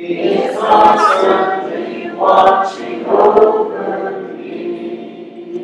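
Congregation of men and women singing a hymn a cappella in parts, with no instruments. Three strong sung phrases come in the first four seconds, then the singing softens toward the end.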